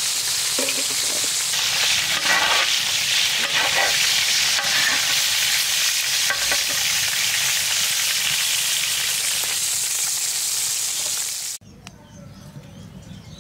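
Chicken pieces sizzling as they fry in hot oil in an iron pan, with a slotted metal spoon stirring and scraping through them now and then. The sizzling cuts off suddenly near the end.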